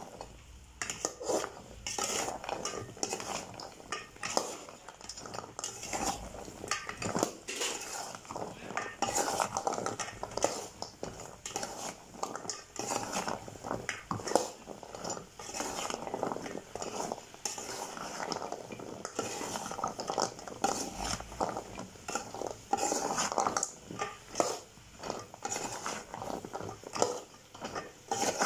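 A perforated metal skimmer spoon scraping and knocking against a metal pot, stirring and turning fried pastries in sticky sugar syrup with repeated irregular scrapes and clinks: the pastries being coated in the syrup.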